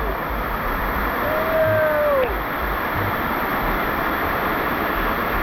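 Waterfall pouring close by: a steady, dense hiss of falling water. A short falling voice call is heard about a second and a half in.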